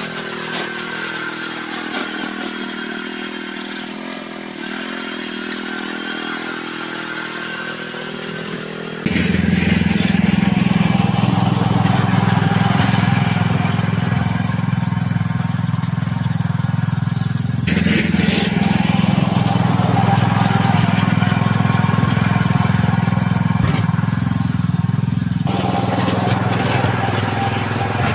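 Small petrol engine of a snowblower running steadily while clearing snow. About nine seconds in the sound jumps abruptly to a louder, deeper running, with further sudden shifts later on.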